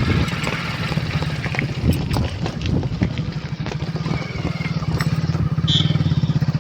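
Motorcycle engine running steadily while riding, its firing pulses beating evenly and getting a little louder in the second half.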